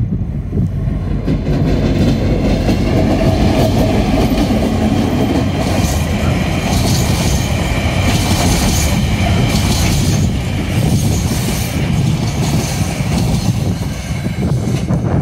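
TasRail DQ class diesel locomotive passing close by with a freight train of container and hopper wagons: the locomotive goes by, then a steady rumble of wagon wheels rolling on the rails, with repeated clicks over the rail joints in the middle.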